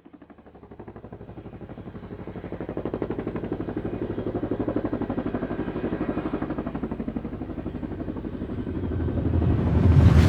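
Helicopter rotor beat: a fast, steady pulse of about eight a second, growing louder toward the end, then a loud burst that cuts off suddenly.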